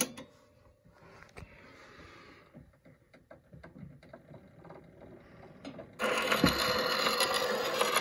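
Edison Diamond Disc phonograph being set going: faint clicks and rubbing from the mechanism as the turntable spins. About six seconds in, the diamond-stylus reproducer is lowered onto the record with a low thump, and the loud, steady hiss and crackle of the disc's surface noise starts.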